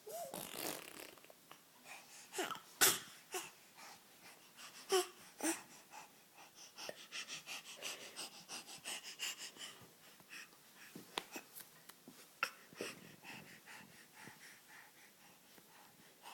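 A pet making a string of short breathy noises and sharp clicks, with a fast, even run of clicks in the middle.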